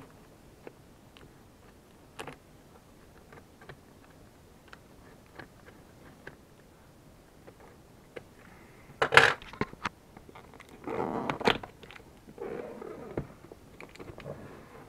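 Box cutter slitting the tape seal on a cardboard box: faint scattered ticks at first, then several louder scrapes of blade and cardboard in the second half.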